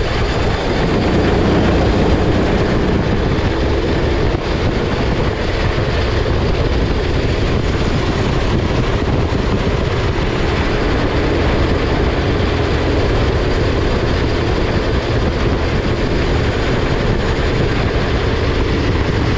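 Rental racing kart's engine running hard through a lap, heard onboard the kart as a loud, steady rush with wind noise, no clear engine note standing out.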